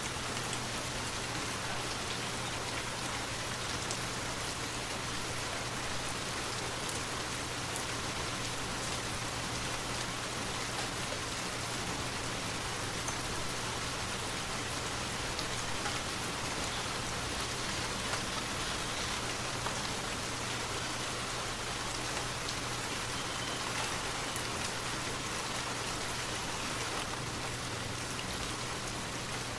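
Waterfall: a steady, unchanging rush and splash of falling water.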